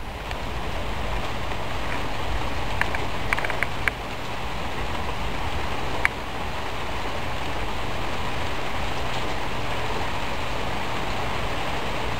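Steady rain falling in a thunderstorm: an even hiss, with a few sharp clicks about three to four seconds in and once more around six seconds.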